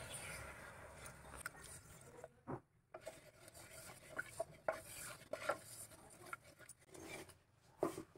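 Wooden spatula stirring lumps of jaggery melting in water in a pressure cooker pot, with faint scrapes and small knocks against the pot.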